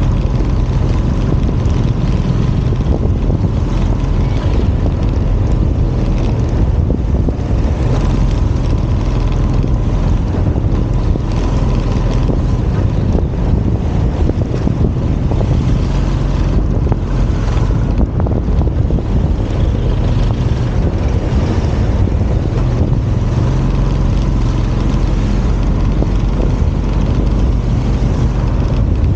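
Steady low rumble of riding through road traffic: wind buffeting the camera's microphone over the running engine and tyre noise of the vehicle and surrounding cars.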